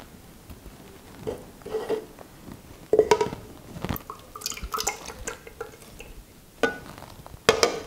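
Raw egg whites being poured from a small glass bowl into a jug, trickling and dripping, with a few sharp knocks and clinks of the bowl and jug; the loudest knocks come near the end.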